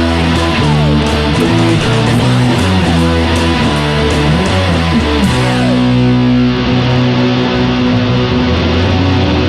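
Rock music led by a heavily distorted electric guitar playing a riff, with notes sliding down in pitch twice.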